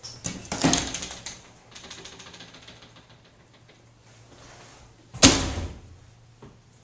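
A folding door rattling and clattering as it is pushed open by hand, followed by a single sharp bang about five seconds in.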